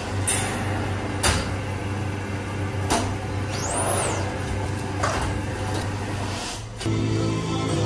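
Hand-operated screen-printing press being worked: the squeegee carriage slides on its rails with several sharp knocks and clunks, and a rising then falling swish about four seconds in, over a steady low hum. Music comes in near the end.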